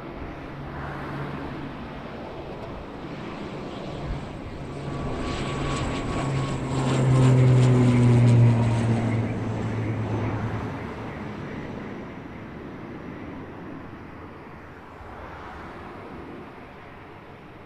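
Airbus C295 twin-turboprop at takeoff power passing by: a steady propeller and engine drone that grows louder, peaks about seven to eight seconds in with its pitch dropping as it goes past, then fades away.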